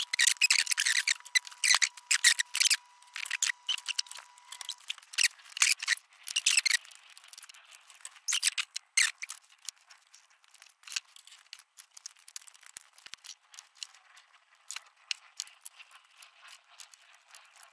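Clicks, scrapes and light metallic rattles of a control cable's outer being worked by hand down into its bracket, busiest in the first few seconds and then sparser, until the cable seats.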